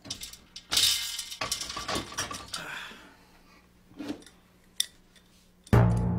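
Metallic clinking and rattling from a spoked bicycle wheel being handled, densest in the first few seconds and thinning to a few single clicks. Near the end, music comes in loudly with deep notes.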